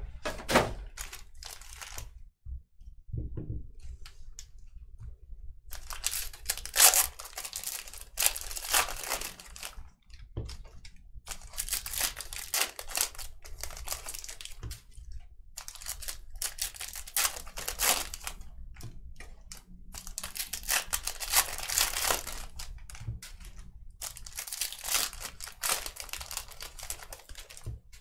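Foil trading-card pack wrappers being torn open and crinkled, in bursts of a few seconds each with short pauses between.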